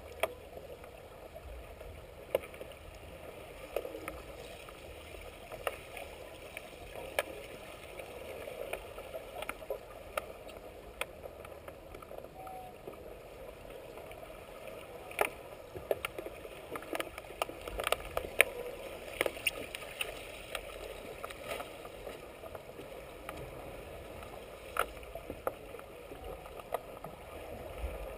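Underwater pool ambience: a steady hiss with many sharp, scattered clicks and knocks, the sound of underwater hockey play (sticks, puck and players on the tiled pool floor) carrying through the water. The clicks come thicker in the second half.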